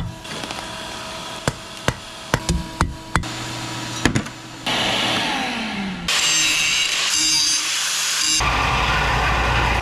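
Hand hammer striking red-hot leaf spring steel on an anvil, about eight irregular blows in the first four seconds. Then a steady rushing noise takes over, and from about six seconds in an angle grinder with a cut-off wheel runs, cutting spring steel.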